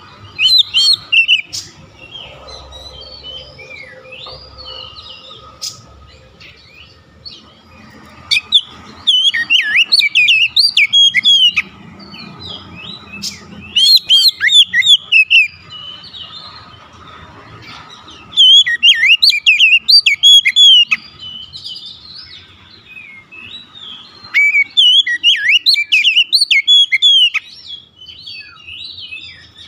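Oriental magpie-robin singing in about five loud bursts of rapid, varied whistled and chattering phrases, with pauses between them. This is the excited, fired-up singing that the song of a rival magpie-robin sets off.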